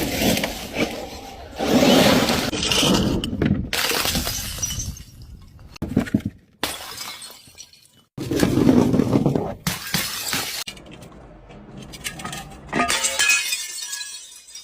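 Glass bottles smashing one after another, about half a dozen breaks, each followed by the clatter and tinkle of falling shards; several of the breaks cut off abruptly.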